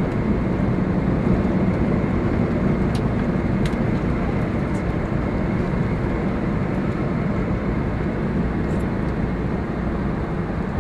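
Steady running noise of a 1939 Cadillac V16 convertible sedan heard from inside the cabin with the top up: the V16 engine and road noise under way.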